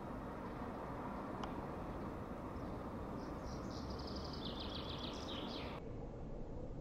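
Steady low outdoor rumble, with a small bird chirping a quick run of high notes from about three seconds in; the chirping and the upper part of the sound cut off suddenly about a second before the end.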